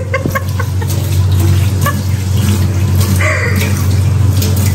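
Water running from a kitchen tap over a steady low hum, with a few light clicks and clatters.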